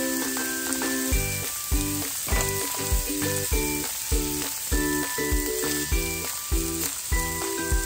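Mushrooms sizzling as they fry in a grill pan, stirred with a spatula, under background music whose steady beat comes in about a second in.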